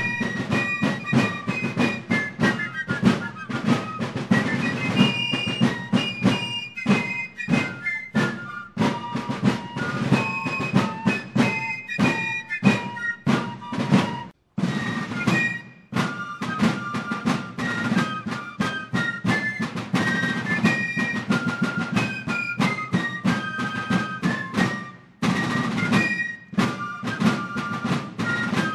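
Fife and drum music: a high fife melody over rapid snare drum beats, with a short break about halfway through before it starts again.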